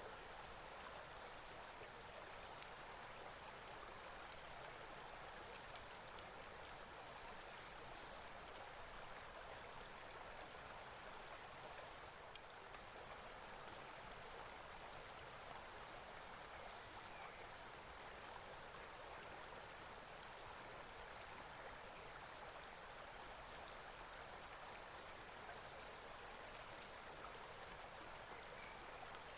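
Faint, steady flow of a stream, with two small clicks in the first few seconds.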